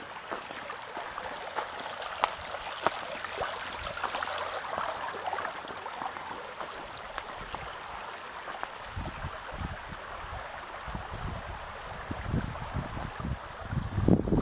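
Water running and trickling along a small rock-lined flume channel: a steady babble with fine splashy ticks. From about nine seconds in, low rumbling buffets of wind on the microphone join in.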